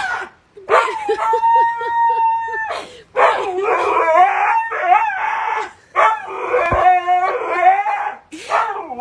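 A dog howling in about four long calls with short breaks between them; the first is held on a steady pitch for about two seconds, the later ones waver up and down.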